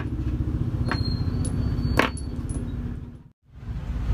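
Metal motorcycle bolts clinking against each other in the hand, two sharp clicks about a second apart, over a steady low rumble. The sound briefly cuts out near the end.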